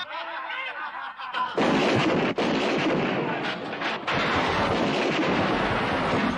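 A man laughing and shouting, then, about a second and a half in, loud gunfire from a revolver and AK-47 assault rifles breaks out and goes on in a dense, unbroken din.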